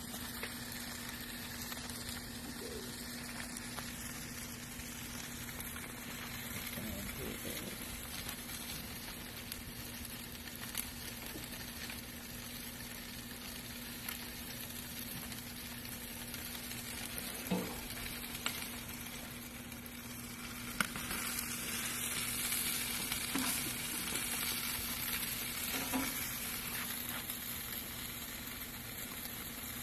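Burger steaks sizzling on foil in a covered grill: a steady frying hiss with a few sharp pops, growing a little louder about two-thirds of the way through, over a faint steady hum.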